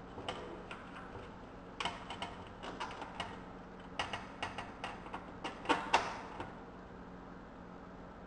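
Irregular light clicks and metallic taps as a bolt, washer and nut are fitted by hand through the rubber grommet mounts of a metal radiator fan shroud. The taps begin about two seconds in and are loudest near six seconds.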